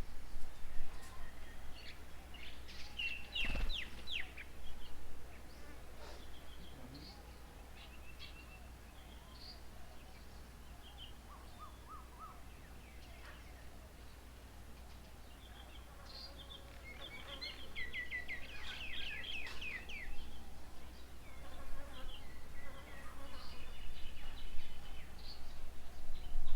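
Birds calling around a feeding table: scattered short chirps, with two runs of rapid chattering calls, a short one about three seconds in and a longer one past the middle. A single sharp knock comes near the start, over a steady low hum.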